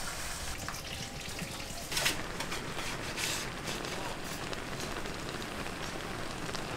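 Oil sizzling and crackling steadily as food deep-fries in a fryer, with a sharp clack about two seconds in.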